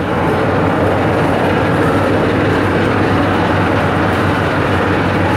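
Ferry boat's engine running steadily, a loud even rumble with no let-up.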